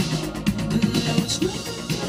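Indie pop band music with a steady drum kit beat and a moving bass line.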